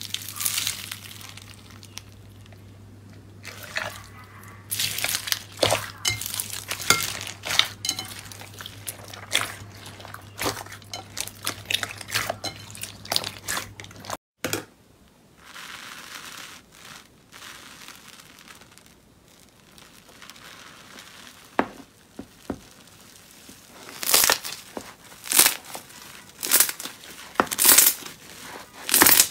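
Slime being squeezed and pressed by hand, making irregular crackling and popping. There is a cut about halfway through, and louder pops come in quick succession near the end.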